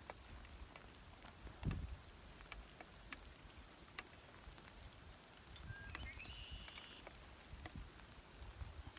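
Light rain falling on a brook's surface, faint and scattered drop ticks over a low rumble. A dull thump comes about two seconds in, and a short rising high-pitched call about six seconds in.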